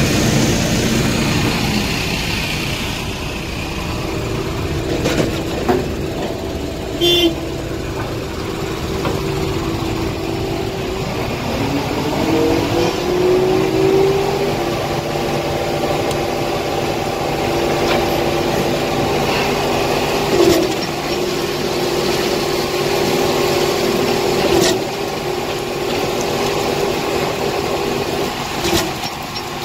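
Heavy diesel truck engine running steadily while a concrete mixer truck discharges concrete into a pump hopper. The revs rise about twelve seconds in and hold higher, with a few sharp knocks scattered through.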